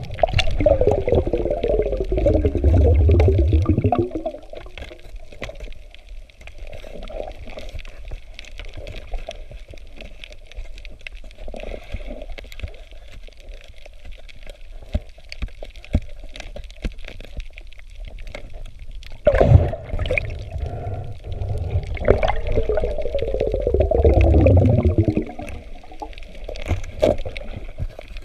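Underwater recording: two long stretches of bubbling gurgle, the first about four seconds and the second about five, with a run of faint clicks and taps in between.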